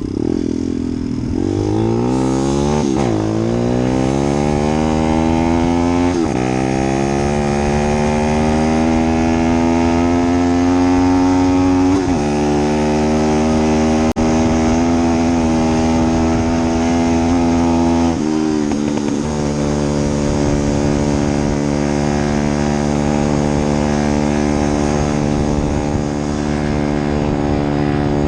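Vehicle engine accelerating through the gears: its pitch climbs, drops sharply at each of four upshifts, then holds steady at cruising speed for the last several seconds.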